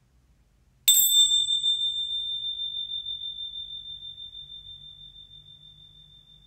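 Meditation bells struck once, about a second in, giving a single clear high ring. It fades slowly with a wavering shimmer. The ring is the signal to come out of yoga nidra and back to waking awareness.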